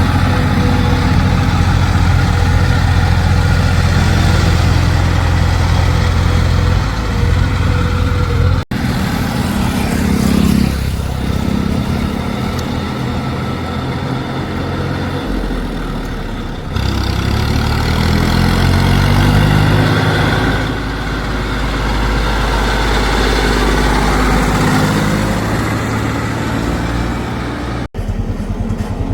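Heavy diesel machinery engines running, with the engine speed rising and falling about two-thirds of the way through, as under load. The sound breaks off sharply twice.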